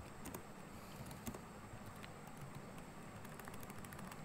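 Quiet background hiss with a few faint, scattered clicks.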